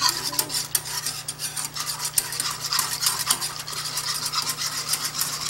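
Wire whisk beating brown gravy in a small metal saucepan, a rapid run of scrapes and clicks against the pan.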